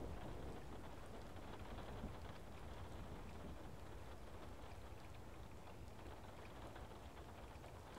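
A faint, steady hiss with scattered light ticks, slowly fading.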